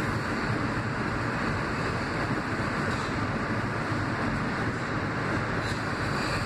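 R160 subway train running through the tunnel, a steady rumble and rail noise heard from inside the front car.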